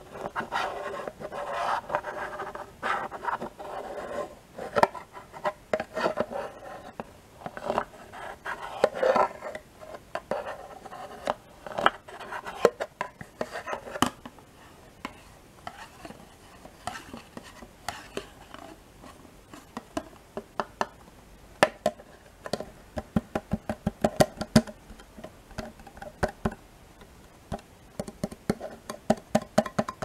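Close-up handling sounds of a spoon scraping in a plastic yogurt cup and fingers crinkling and tapping the plastic packaging, in many small clicks and scratches. The scratchy rustling is densest in the first half; later come runs of quick, sharp taps.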